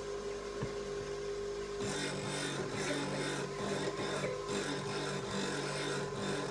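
Electric bench grinder running with a steady hum; about two seconds in, a steel cold chisel is pressed to the spinning abrasive wheel and ground in repeated passes, a rasping grind that rises and falls with each pass as the chisel's bevels are formed.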